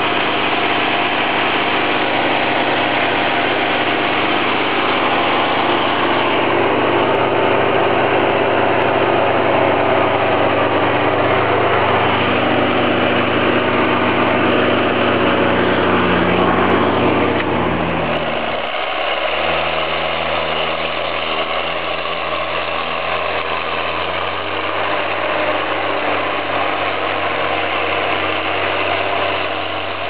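John Deere 7810 tractor's six-cylinder turbo diesel running steadily and loud, its engine note dropping a little past halfway and changing again a few seconds later.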